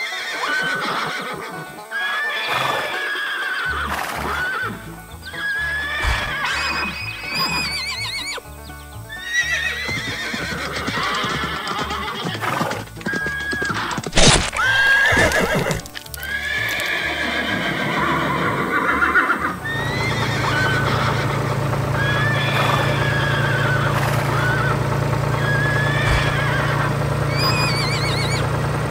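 Horse whinnies, one after another, with clip-clopping hoofbeats over background music. A sharp knock comes about halfway through, and a steady low hum joins in about two-thirds of the way through.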